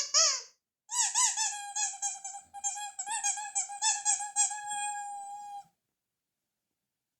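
Ledraplastic rubber squeaky toy being squeezed: a short squeak, then after a brief gap a long squeaking note of about five seconds that wavers up and down with each squeeze and stops abruptly.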